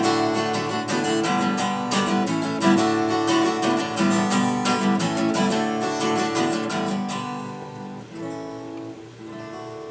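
Acoustic guitar strummed in a steady rhythm, the song's closing bars: after about seven seconds the strumming thins out and the last chords are left to ring and fade.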